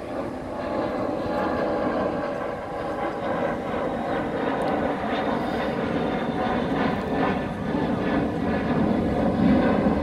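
Steady drone of an aircraft engine, several held tones over a dense rushing noise, growing a little louder near the end.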